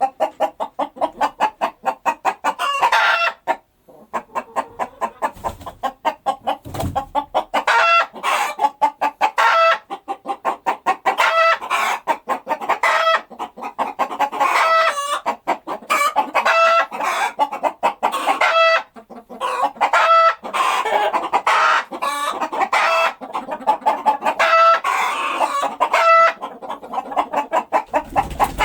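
Chickens clucking in rapid runs, each run ending in a drawn-out squawk, repeating every second or two: hens cackling.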